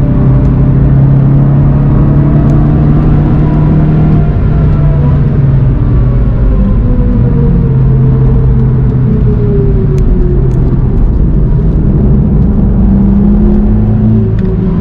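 Car engine and road noise heard from onboard at speed on a race track, the engine note stepping between levels as the car slows for a corner. A whine falls steadily in pitch between about four and nine seconds in.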